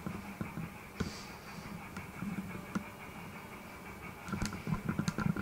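Indoor room tone with a steady low hum, broken by scattered light clicks and taps that cluster near the end.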